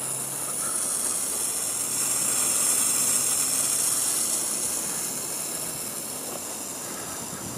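A steady, airy hiss of noise that swells slowly and eases off again.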